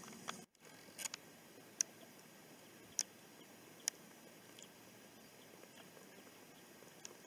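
Faint steady background hiss with a few sharp, isolated clicks spaced about a second apart. A brief dropout to silence comes about half a second in.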